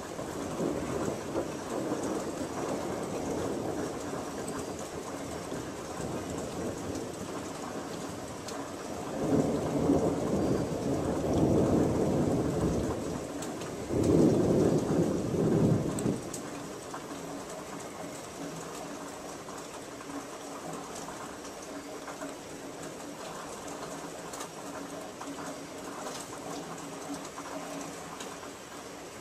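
Thunder rumbling in several rolling swells for about seven seconds, starting about nine seconds in, over a steady hiss of rain.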